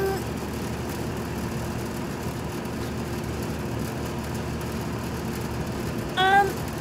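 A steady mechanical drone with a constant humming tone, of the kind an idling engine makes. About six seconds in, a brief high-pitched voice sounds once.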